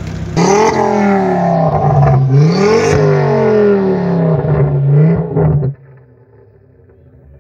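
Ford Focus RS Mk2's turbocharged five-cylinder engine revved about three times, its pitch rising and falling with each blip, then cutting off suddenly near the end.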